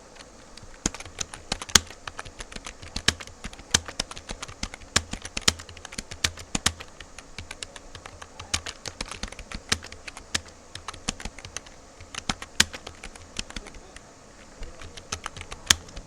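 Computer keyboard keys clicking in fast, uneven runs during a timed typing test, with a brief pause about two seconds before the end.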